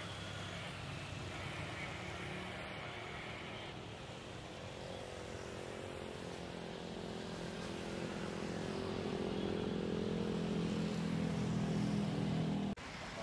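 Jet engines of an Airbus A320-family airliner running on the runway: a steady engine noise that grows louder in the second half with a low droning hum of engine tones, then cuts off abruptly near the end.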